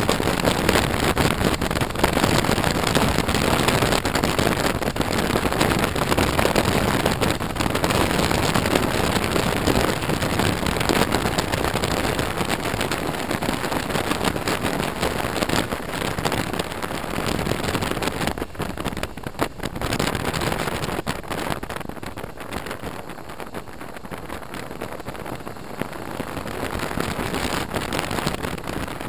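Steady wind rush and road noise buffeting a helmet-mounted camera on a moving BMW R1200RT motorcycle. It eases somewhat past the middle and builds again near the end.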